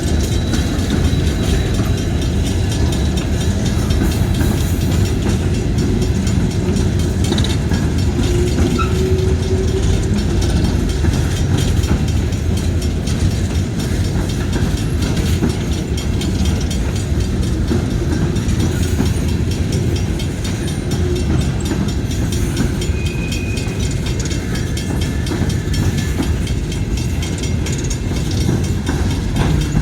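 Train cars rolling past, a steady rumble and rattle of wheels on the rails.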